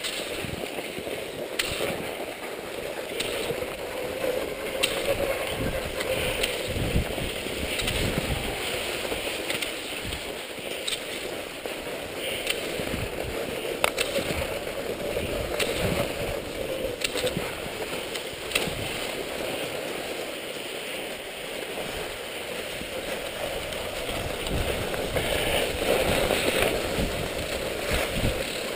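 Cross-country skis sliding and scraping over groomed snow, with wind buffeting the microphone in low gusts. A few sharp clicks stand out along the way.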